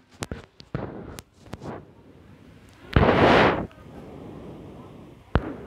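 Handling noise as a phone camera is moved over plastic-lined fish boxes: a few scattered clicks and taps, then a loud rustle lasting under a second about three seconds in, and another click near the end.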